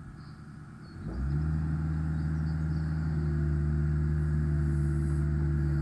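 Hanix H55DR mini excavator's diesel engine stepping up sharply in level about a second in and then running steady at raised revs, with a higher steady hum joining about three seconds in as the boom and bucket are raised.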